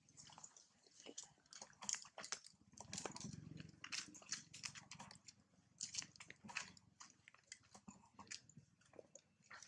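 Long-tailed macaque chewing food held to its mouth: faint, irregular crunches and clicks, several a second.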